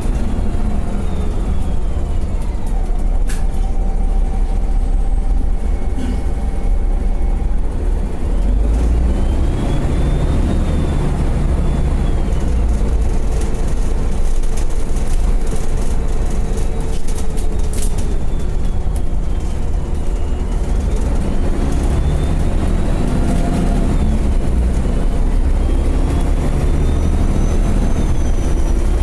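City bus engine and drivetrain heard from on board while driving: a steady low rumble with whining tones that rise and fall as the bus speeds up and slows, and a few sharp clicks and rattles.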